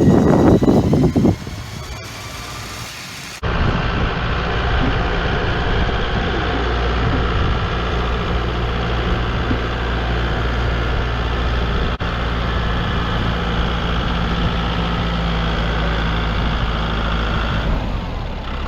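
Truck engine idling steadily during a winch recovery, with a steady higher whine over the low drone. It starts abruptly about three seconds in, after a short quieter stretch.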